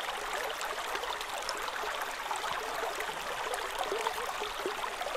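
Shallow sandy-bottomed creek running: a steady babble of flowing water.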